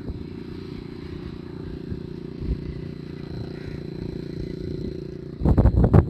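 Steady low engine hum and running noise of a moving vehicle, heard from aboard it. About five and a half seconds in, a short run of louder bursts cuts in over the hum.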